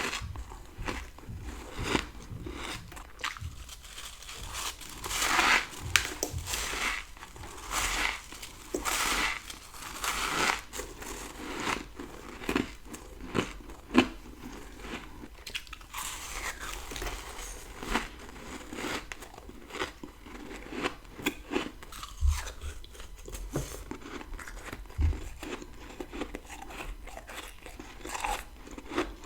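Close-up crunching bites and chewing of powdery freezer frost, a string of irregular crisp crunches with louder bites now and then.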